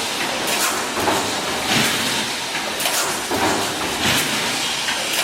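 Automatic wire mesh welding machine running, with a steady mechanical din and a hissing stroke about once a second as it cycles through its welds.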